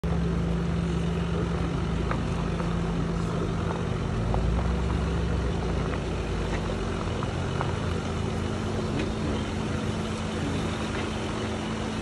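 Jeep Wrangler crawling slowly over a rocky dirt trail: the engine runs with a steady low hum while the off-road tyres crunch over gravel and stones, giving scattered small clicks.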